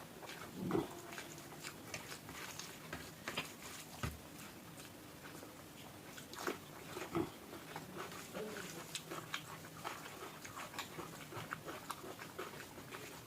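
A person eating close to the microphone: chewing and wet mouth sounds with many scattered clicks and small knocks, the loudest about a second in.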